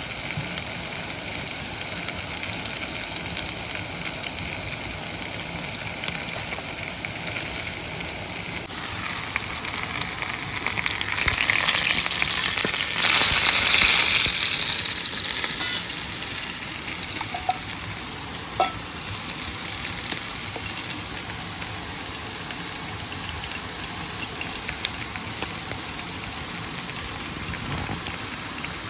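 Food sizzling in a pan over a small wood fire, a steady frying hiss that swells for several seconds midway, then settles. Two sharp clicks, like a utensil against the pan, come about halfway through and a few seconds later.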